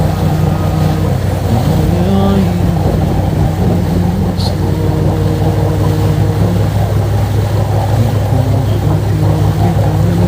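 Steady deep rumbling noise, an added noise track heavy in the low end like an engine or boat drone, with a man's Quran recitation over it in long, slowly drawn-out chanted syllables.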